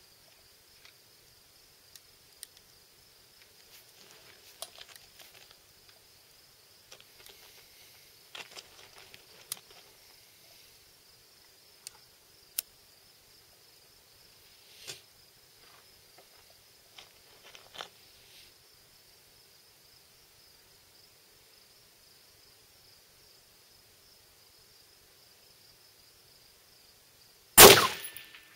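A single shot from a Bushmaster Varminter AR-15 rifle firing 5.56mm XM193 55-grain ammunition, sharp and loud, near the end, after a long stretch of faint scattered clicks.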